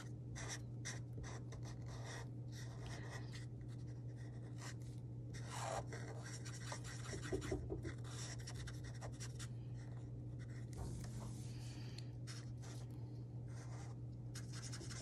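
Felt-tip Mr. Sketch marker scribbling on paper in many short, quick strokes as an area is colored in, over a steady low hum.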